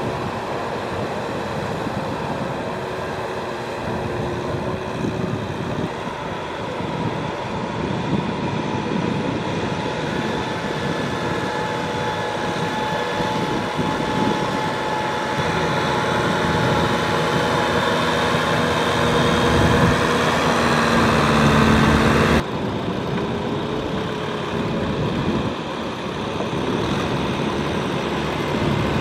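Kubota M6040 tractor's four-cylinder diesel engine running under load as it drags a rotary tiller through wet paddy mud. It grows louder toward the middle, then drops abruptly about three quarters of the way through and carries on more quietly.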